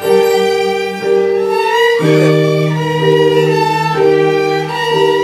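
A small band playing a slow song, with a violin to the fore over sustained chords. The bass note steps down about two seconds in.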